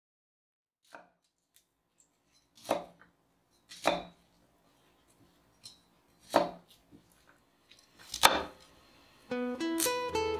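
Kitchen knife chopping broccoli on a wooden cutting board: about five separate sharp chops, a second or two apart, the loudest near the end. A little before the end, plucked acoustic guitar music starts.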